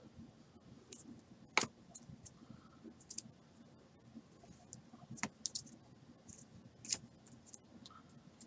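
Faint, scattered clicks and taps of trading cards in plastic sleeves and toploaders being handled and set down on a table, with a few sharper taps.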